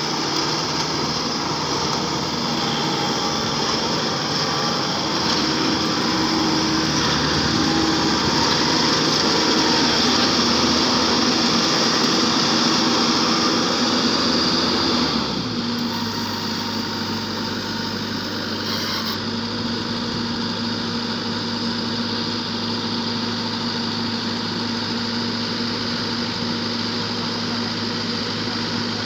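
World combine harvester running steadily while harvesting rice. About halfway through the sound drops suddenly and settles to a lower, steadier engine note.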